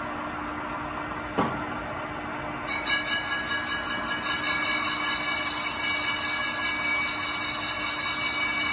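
Metal lathe running while a left-hand turning tool faces the worn surface of a brake disc flat. There is a sharp click about a second and a half in. About three seconds in, the sound gets louder and brighter, pulsing at first and then holding steady.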